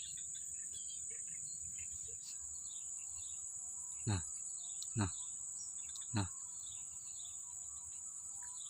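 Swamp ambience: a steady high-pitched insect drone with small birds chirping. About four seconds in come three loud, quick calls about a second apart, each sweeping sharply downward.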